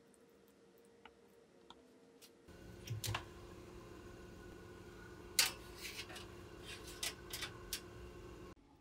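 Small kitchen-work clicks and taps from baking utensils being handled. There are a few faint ticks at first, then a cut about two and a half seconds in to a faint steady hum, with a string of sharper clicks and one loud tap.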